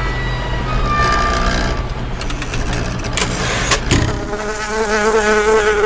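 Cartoon insect buzz: a steady, fly-like drone with a slightly wavering pitch that starts about four seconds in. Before it come a run of sharp clicks and a few short high tones.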